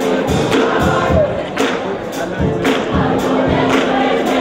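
Music: a choir singing, with percussion keeping a steady beat.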